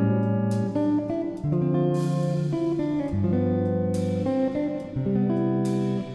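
Background music played on guitar, its chords changing about every second.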